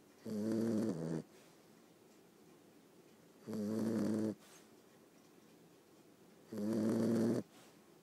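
A young Boxer puppy snoring in her sleep, close to the microphone: three snores, each about a second long, coming evenly about every three seconds.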